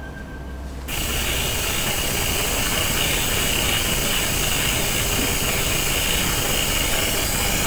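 Steady, grainy hiss from a Ring indoor security camera's night recording of a bedroom, switching on abruptly about a second in.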